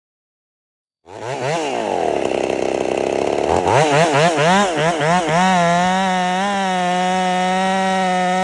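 Ported Husqvarna 55 two-stroke chainsaw starting abruptly about a second in, revved up and down in a quick run of throttle blips, then held at a steady high speed. The saw is being run in with its port timing raised and its cylinder freshly sanded.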